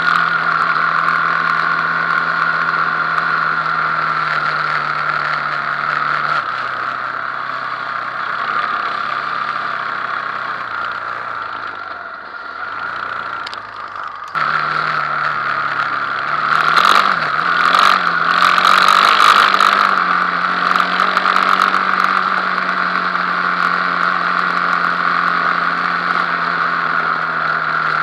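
Quad bike (ATV) engine idling, its pitch sagging lower for several seconds, then, after an abrupt jump back up, a few short blips of the throttle before it settles into a steady idle. A steady high whine runs over the engine note.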